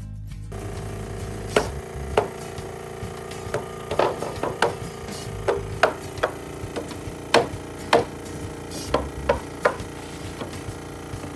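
Hammer striking nails into wooden deck framing lumber: a string of sharp, irregular knocks, some in quick runs of two or three, over a steady hum.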